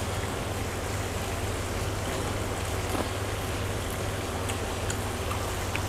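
Meat sizzling steadily on a grill pan over a portable gas stove: an even hiss with a few faint crackles, over a constant low hum.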